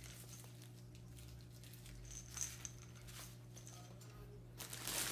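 Light handling noise of toys and packaging: soft rustles and small clicks, then a louder rustle near the end as packaging is moved while reaching into the cardboard box. A steady low hum runs underneath.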